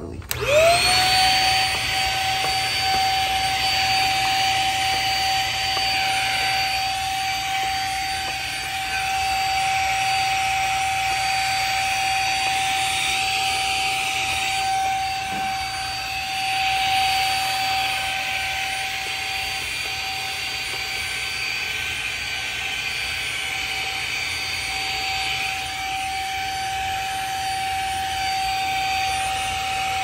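Shark Rocket vacuum switched on right at the start, its motor spinning up to a steady high whine. The rush of air swells and dips as the nozzle is worked along a refrigerator's condenser coils, sucking out dust.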